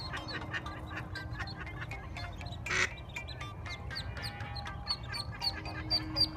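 Mallard ducklings peeping in quick, high-pitched calls, with one louder, harsh quack from the hen a little under three seconds in, over background music.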